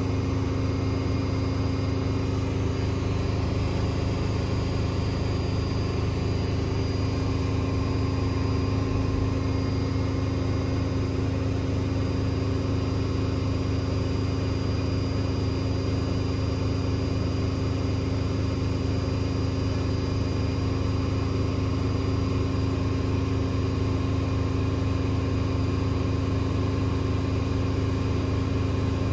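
Zanussi IZ161W washing machine on a spin at high speed, its drum and motor giving a steady hum that holds one pitch throughout.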